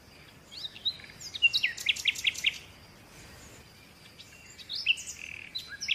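Small birds chirping: quick, high twittering calls and short whistled sweeps in two bursts, one in the first half and one near the end, with a quiet gap between them.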